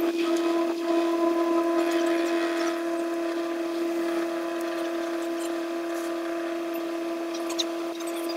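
Heavy recovery truck's winch hauling a loaded eight-wheel grab lorry backwards on its cable, a steady unchanging whine with faint scrapes and ticks over it.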